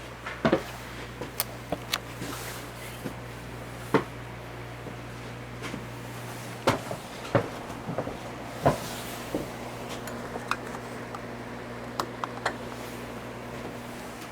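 Codep industrial ceiling fan running with a steady electric motor hum, joined by a second faint steady tone about halfway through. Irregular sharp clicks and knocks are scattered over it.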